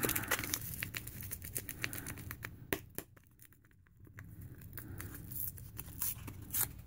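Plastic and foil ration packets crinkling and rustling as they are handled, then a sharp tearing crackle near the end as a small non-dairy creamer packet is ripped open.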